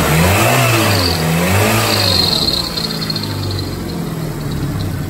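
Peugeot 206 petrol engine being revved, its pitch rising and falling a few times, with a high squeal from the accessory (fan) belt about a second and two seconds in. The squeal comes from a worn, crooked belt tensioner that no longer runs the belt centred; it squeals when the throttle is opened.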